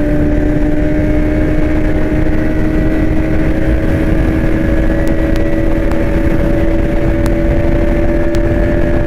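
Bajaj Pulsar NS200's single-cylinder, liquid-cooled 199.5 cc engine running hard during a top-speed run. Its steady note climbs slowly as the bike gains speed, under a loud rush of wind on the microphone.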